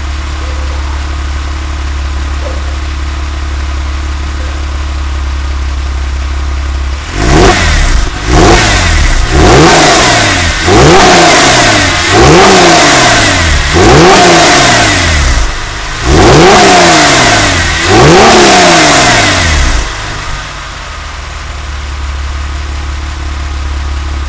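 Porsche 911 Carrera 4S flat-six through a custom-made aftermarket muffler. It idles steadily, then is blipped about eight times in quick succession, each rev rising and falling in pitch, and settles back to idle near the end.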